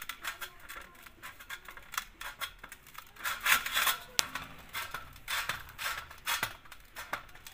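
Hands kneading a stiff maida dough in a stainless steel tray: irregular pressing, rubbing and squeezing sounds with a few sharp clicks.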